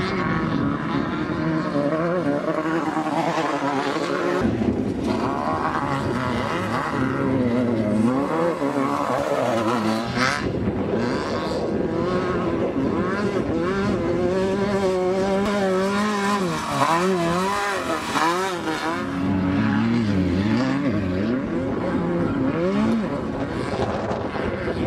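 Off-road race buggy engines revving hard, their pitch climbing and dropping again and again as they accelerate, shift and back off, with more than one engine heard at once at times.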